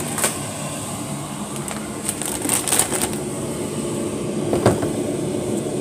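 Scattered clicks and rustles of a handheld phone being moved about, bunched together about two to three seconds in, over a steady low machine hum.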